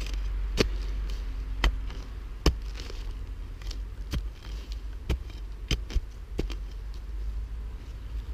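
Hand spade digging into leaf-covered woodland soil: about a dozen sharp, irregular chops and scrapes of the blade with crackling dry leaves.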